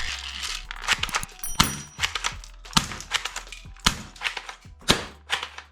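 Plastic toy guns clicking and snapping: a run of sharp, uneven clicks, about three a second.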